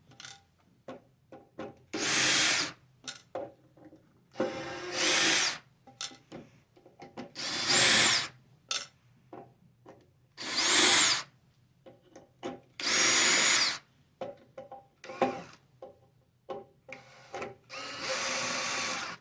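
Cordless screw gun backing out a row of housing screws, run in short bursts of about a second every two to three seconds, about seven times. Light clicks and taps between the runs.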